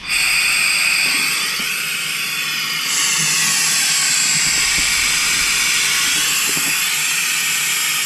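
Compressed air hissing steadily through a pneumatic vacuum oil extractor. It is switched on abruptly and steps up slightly about three seconds in, as it draws excess oil out of an overfilled diesel engine crankcase.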